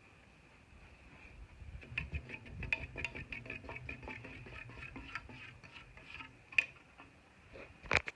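A ceiling fan's chain-pulled switch gear rattling in rapid, irregular ticks over a low hum for a few seconds, then two sharp separate clicks near the end, as the light pull chain is worked.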